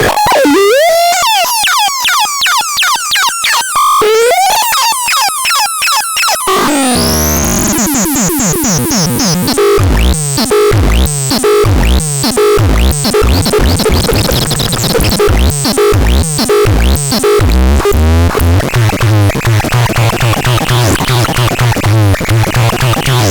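ADEPAX synthesizer playing electronic sounds: fast warbling pitch sweeps up and down for the first six seconds or so, then a choppy, pulsing texture over a repeating bass note with hiss on top.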